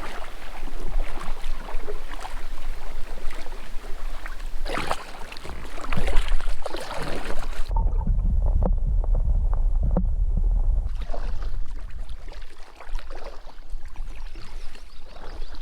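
Paddle strokes of a packraft on a lake: the blades dip and splash in the water at an uneven pace. Wind rumbles on the microphone, most heavily for a few seconds in the middle.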